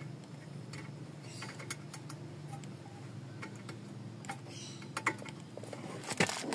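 Faint, irregular light clicks and taps from hands handling a bolt and parts at a car's front lower suspension arm, over a low steady hum.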